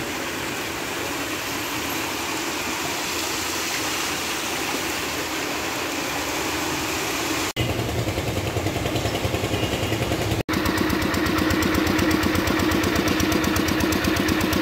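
Steady hiss of heavy rain. After a cut comes a low pulsing rumble, and after another cut a portable engine-driven water pump runs steadily with a rapid even beat, pumping floodwater out through a hose.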